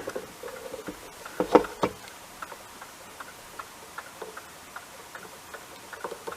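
Meter probes clicking against a tiny surface-mount fuse on a circuit board, with no continuity beep following: the speaker takes the fuse to be blown. A faint, even ticking runs at about three ticks a second.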